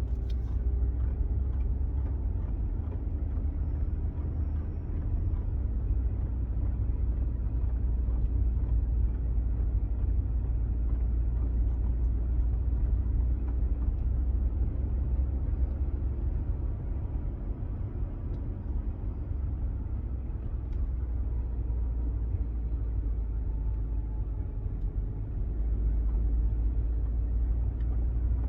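2012 BMW 5 Series Touring (F11) driving at low speed, a steady low rumble with faint thin whines coming and going above it; the car has a weird noise from the front centre that shows at lower speeds.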